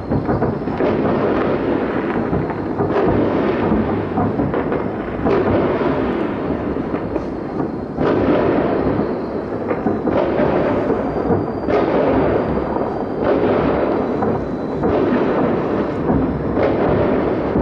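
Distant fireworks salute fired from salute launcher vehicles: a continuous rolling rumble of shell bursts, with a fresh boom every couple of seconds.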